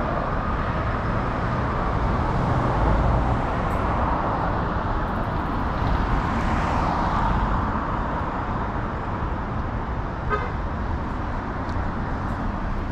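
Steady road traffic, cars passing on a multi-lane city street, one swelling by about six seconds in, with a short beep about ten seconds in.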